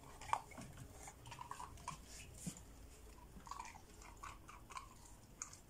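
A dog chewing a hard homemade dog biscuit: an irregular run of small, faint crunches and clicks.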